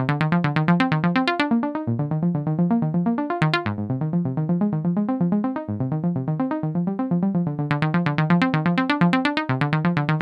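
Casio CT-X700 portable keyboard playing a synthesizer tone in fast, evenly repeating notes, arpeggio-like, over a bass line that changes every half-second or so.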